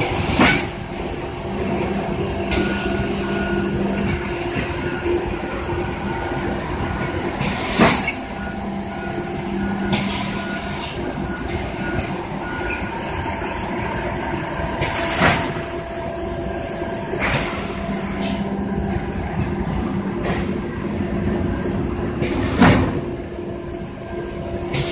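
Thermoforming packaging machine running through its cycle: a steady mechanical hum with a sharp clack about every seven and a half seconds and smaller clicks in between. A hiss sounds for a few seconds near the middle.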